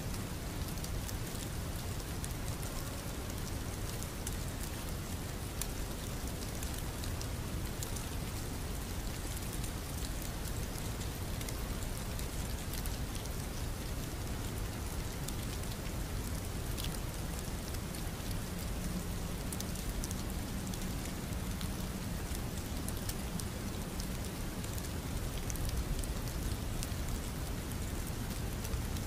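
Rain ambience: a steady hiss of rainfall with many small drop ticks.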